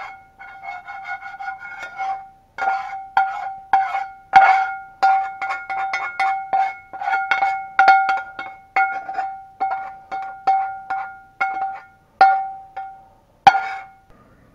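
A metal spatula scraping and knocking against a cast-iron skillet, each stroke setting the pan ringing on the same clear tone. The strokes come irregularly, one or two a second, the hardest about four seconds in and near the end.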